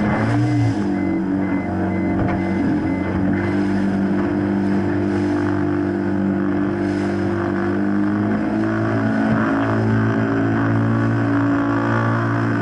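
Small boat's outboard motor running at speed, its note wavering briefly near the start and then holding steady.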